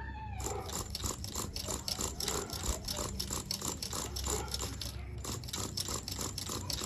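Rapid, irregular rattling and scraping clicks, several a second.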